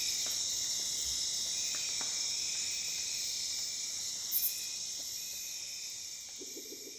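Dense chorus of crickets and other insects, a steady layered high trilling. There is a brief sharp chirp a little over four seconds in, and a short low pulsing call near the end. The whole chorus gradually fades out over the last couple of seconds.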